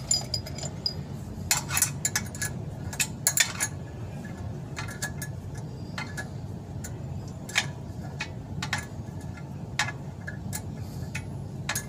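Metal clinks and ticks of a combination wrench on the bolts of a clutch pressure plate as it is bolted to the flywheel, irregular, with a busier run in the first few seconds. A steady low hum runs underneath.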